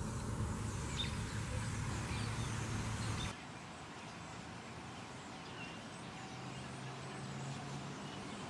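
Outdoor background noise: a low steady hum with a few faint bird chirps. The background level drops suddenly about three seconds in.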